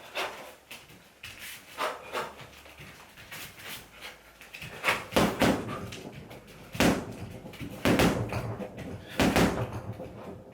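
Punches landing on a home heavy bag: a few lighter hits early, then heavier thuds in the second half, roughly one every second or so.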